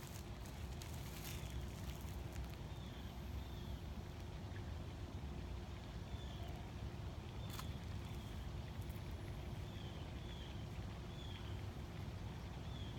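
Outdoor background: a steady low rumble with a faint steady hum, and short high bird chirps every second or two. A few sharp clicks come at the start, about a second in, and once in the middle.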